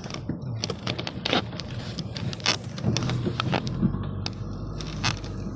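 Car engine running with a low steady hum, with a string of sharp clicks and knocks over it.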